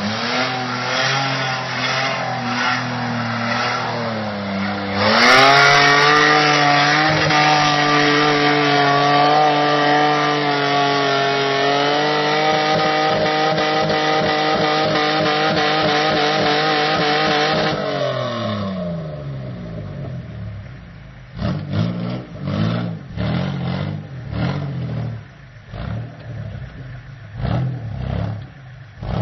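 A 4x4's engine revving hard off-road. It rises sharply about five seconds in and is held at high, nearly steady revs for about twelve seconds, then the revs drop away. After that come short, irregular bursts of throttle.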